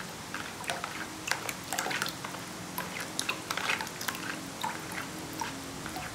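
Soft pea-starch jelly being pushed with a spoon through a perforated plastic steamer tray, its strands dripping and plopping into a basin of cold water. Irregular small drips and wet squishes, several a second.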